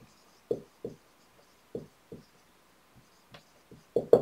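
Marker writing on a whiteboard: about eight short, irregularly spaced knocks as the tip strikes the board, the loudest two close together near the end.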